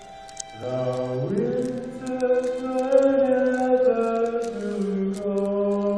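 Live stage-musical singing: voices hold long notes over accompaniment. After a brief lull, a low note enters about half a second in and slides up a second later, and held notes follow.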